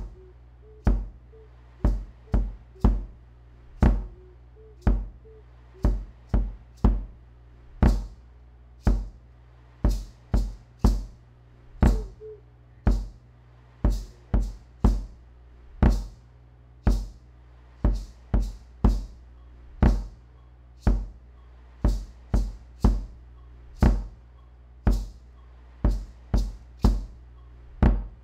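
Looped electronic percussion beat: sharp knock-like hits, each with a deep thump under it, repeating in an even pattern of two to three hits a second over a steady low drone. A few faint wavering higher notes come in near the start and again about twelve seconds in.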